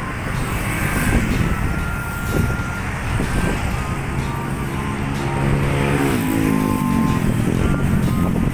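Road traffic of motorcycles and cars: a steady low rumble of engines and tyres. Around six seconds in, one engine's pitch drops as it slows or passes.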